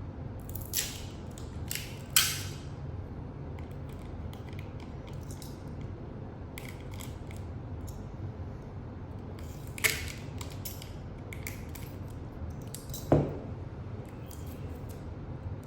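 Adhesive tape being worked by hand: several short rips and crackles of tape pulled off the roll and torn or cut, scattered irregularly, over a steady low hum.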